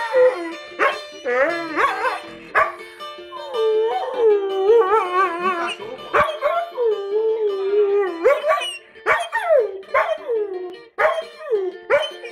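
Dog howling along to a strummed cavaquinho, its long calls wavering and sliding in pitch, while sharp strummed chords cut in between.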